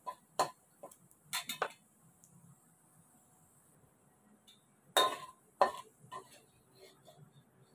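Metal spatula clinking and scraping against a wok while stirring pork fat frying until crispy: a few sharp strokes in the first two seconds, a quiet spell, then another run of clinks about five seconds in.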